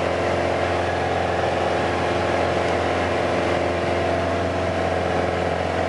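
Steady cabin drone of a Piper Arrow in cruise flight: its four-cylinder Lycoming IO-360 engine and propeller running at constant power, with a hiss of air over the airframe.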